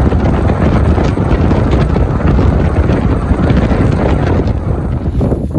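Wind buffeting a microphone mounted on the outside of a moving car, mixed with tyre and road noise at highway speed: a loud, steady low rumble.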